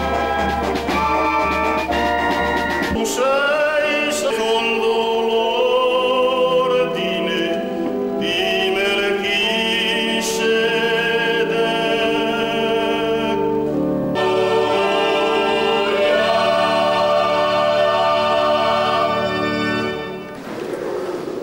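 A brass band playing for about the first three seconds, then a choir of men and women singing a hymn in long held notes.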